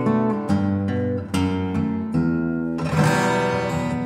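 Acoustic guitar background music, a run of plucked notes with a fuller strummed chord about three seconds in.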